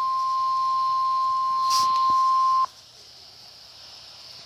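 NOAA Weather Radio warning alarm tone being tested: a single steady high tone of about 1050 Hz, broadcast over weather radio. It cuts off sharply about two and a half seconds in, leaving faint radio hiss, with a brief crackle of static shortly before the cut.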